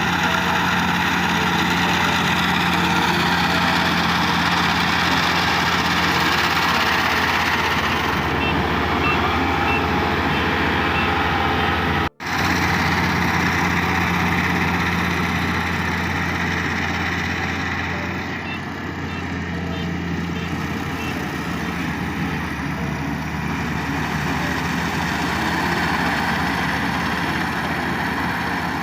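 Combine harvester running steadily at work: an even engine hum with dense machinery noise over it. The sound drops out for an instant about twelve seconds in.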